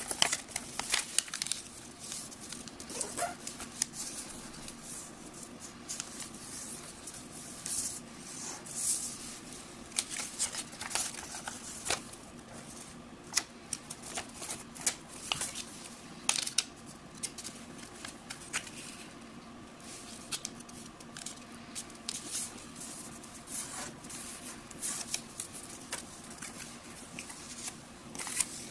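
A sheet of paper handled and folded by hand: irregular rustles, crinkles and sharp crease snaps throughout.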